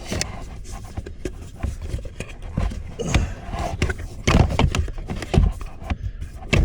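Irregular knocks, clicks and scraping as the blower motor is worked loose and shifted in its housing under the dash.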